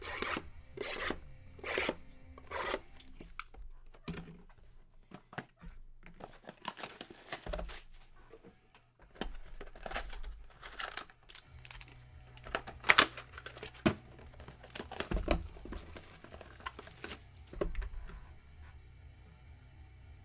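Plastic trading-card pack wrappers being torn open and crumpled by hand: a run of short rips about one a second at the start, then bursts of tearing and crinkling, the loudest about two-thirds of the way through.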